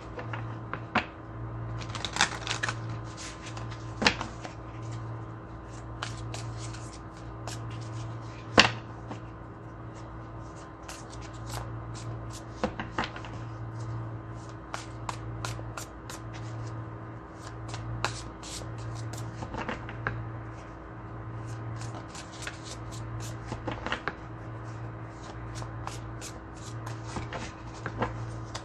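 Tarot cards being shuffled and handled by hand: irregular riffling, snapping and tapping of the cards, over a faint low hum.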